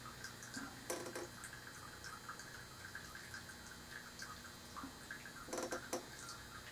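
Faint clicks and light taps of a paintbrush being worked off the board, in paint and solvent, with a short knock about a second in and a few more near the end.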